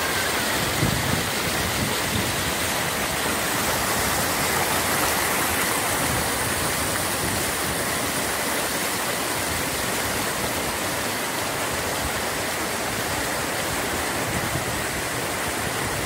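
Steady rush of a rocky mountain stream cascading over boulders below a waterfall, an even hiss of running water.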